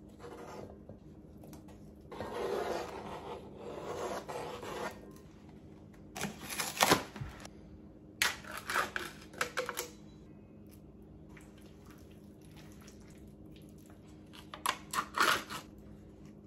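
A knife scraping chopped strawberries off a cutting board into a stainless steel bowl, a few seconds of rasping scraping. Sharp clicks and knocks of utensils and containers follow, in clusters about six, nine and fifteen seconds in, as a plastic yogurt cup is handled and opened.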